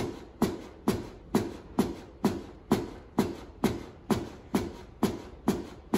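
Chest compressions on a CPR training manikin: a steady rhythm of sharp thumps, a little over two a second, each fading quickly. This is the fast compression pace.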